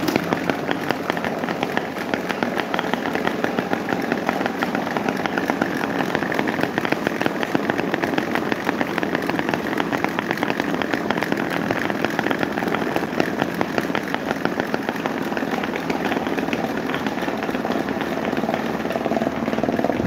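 Several electric fans, an orange box fan among them, running together: a steady whirring with a fast, even rattle of ticks running through it.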